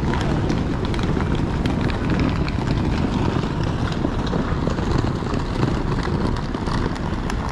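Steady outdoor noise with a heavy low rumble.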